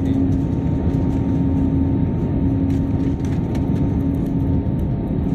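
Steady low rumble of airliner cabin noise, engines and airflow, with a steady hum running through it.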